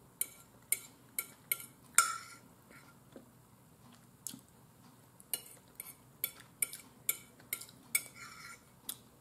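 Metal fork clinking and scraping against a dinner plate while eating, in a string of irregular sharp clicks, about two a second.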